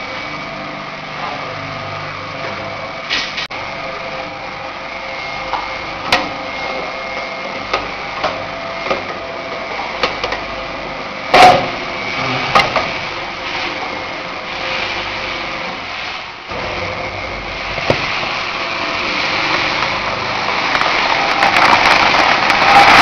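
Peanut roaster machine running with a steady mechanical hum, broken by scattered sharp clicks and knocks. It grows louder over the last few seconds.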